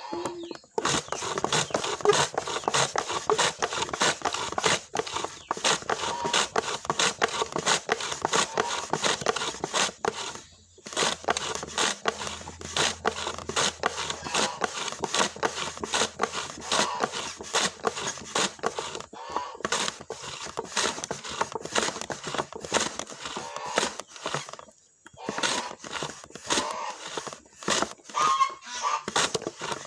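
Shallots being sliced on a wooden hand slicer: rapid, repeated scraping strokes across the blade, with a short break about ten seconds in and another near twenty-five seconds.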